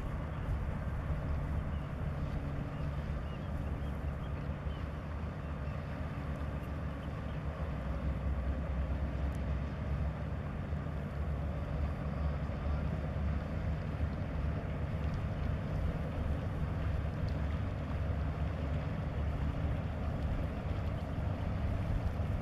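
Offshore crew-transfer catamaran's engines running with a steady low drone.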